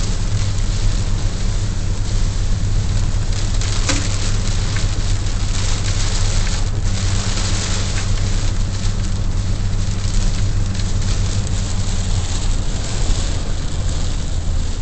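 Rain hitting a moving car, heard from inside the cabin, over the steady low rumble of engine and tyres on a wet road. A single short click about four seconds in.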